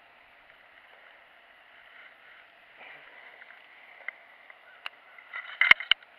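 Handling noise close to the microphone: a few small clicks, then a quick cluster of sharp knocks about five and a half seconds in, over a steady faint hiss.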